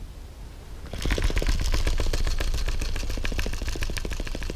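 Baitcasting reel cranked fast to retrieve the lure: a rapid clicking whir that starts about a second in.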